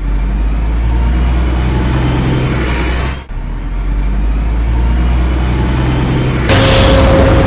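Train running with a heavy, steady low rumble, breaking off for a moment a little under halfway; about a second before the end a louder noise comes in with a steady held tone.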